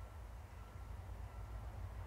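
Faint steady low rumble of outdoor ambience, with a faint short high tone repeating about every two-thirds of a second.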